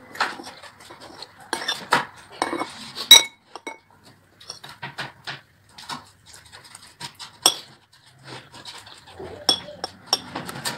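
Metal spoon scraping and clinking against a ceramic plate while scooping up rice: a string of sharp, irregular clinks, the loudest about three seconds in.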